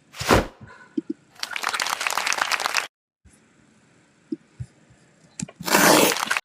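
A run of short editor sound effects that start and stop abruptly: a brief noisy swish, then about a second and a half of dense crackling that cuts off to dead silence, then a louder noisy burst near the end.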